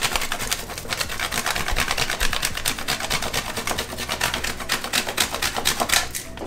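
Dark chocolate being grated on a flat handheld metal grater: quick rasping strokes, many a second, stopping near the end.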